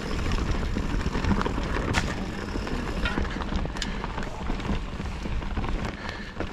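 Scott Genius 930 full-suspension mountain bike descending a forest singletrack, heard from a chest-mounted camera: a steady rush of tyres on dirt and air past the microphone, with scattered clicks and knocks as the bike rattles over roots and stones.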